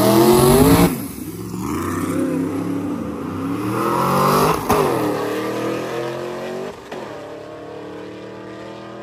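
Two drag cars, a twin-turbo Chevelle and a manual-shift F-body Camaro/Firebird, launching and running hard down the drag strip. The engines rise steeply in pitch, drop off sharply just before a second in, then climb again. One car sweeps past about four and a half seconds in with a swooping drop in pitch, and the engine sound fades with falling pitch after that. On this pass the Chevelle spins its tires badly.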